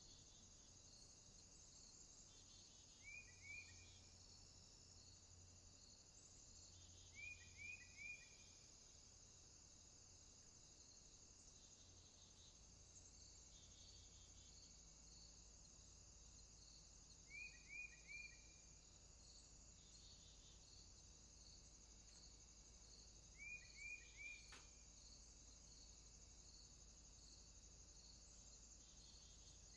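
Faint outdoor afternoon ambience: a steady, high insect chorus of chirping crickets, with a bird breaking in four times with short phrases of two or three quick notes.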